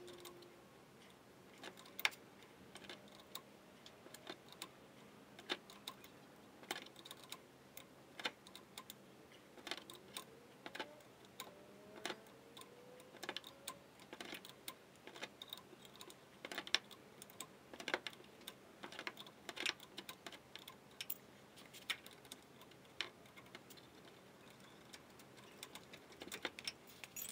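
Irregular light clicks and taps, one to three a second, of hand tools and metal parts being handled during shock and sway bar link replacement, with a few faint squeaks in the middle.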